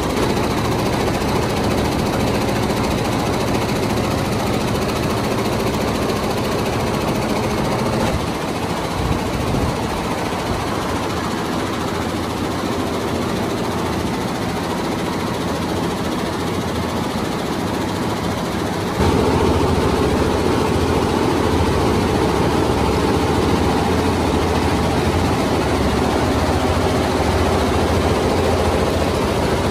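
Computerized multi-head embroidery machines running, their needles stitching rapidly in a steady mechanical clatter. The sound shifts abruptly about 8 seconds in and again about 19 seconds in, when it gets louder.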